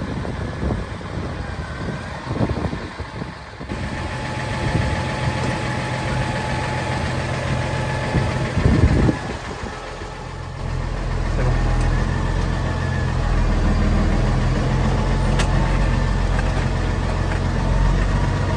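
2007 Valtra T190 tractor's diesel engine idling steadily. About ten seconds in it gets louder and lower, heard from inside the cab, and a brief loud knock comes just before.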